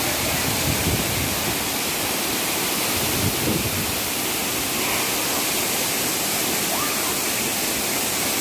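Tall waterfall pouring down a rock face: a loud, steady rush of falling water.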